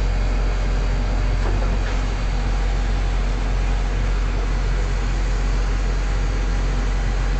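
CAT 316 excavator's diesel engine running steadily, a constant low drone with no change in speed.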